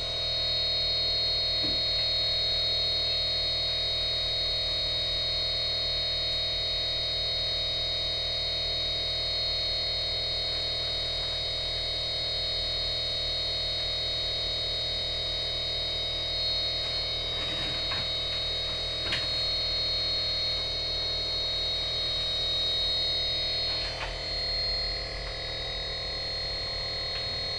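Steady high-pitched electronic whine over a lower tone and a low hum from an O General inverter air-conditioner circuit board powered up for testing, with a few faint clicks in the second half.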